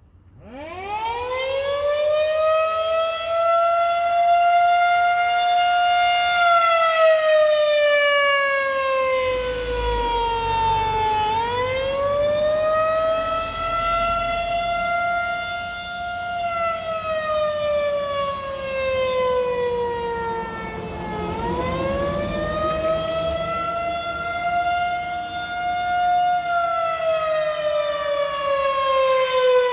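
Federal Signal 2001-130 electromechanical outdoor tornado warning siren starting up for its monthly test: it winds up from silence to a steady high tone within about four seconds. The pitch then sags and climbs again in slow cycles about ten seconds long, in a wailing signal.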